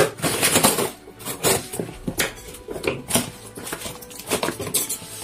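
A knife slitting the plastic packing tape on a cardboard parcel, with the tape and cardboard scraping, ripping and crinkling in irregular strokes, loudest in the first second.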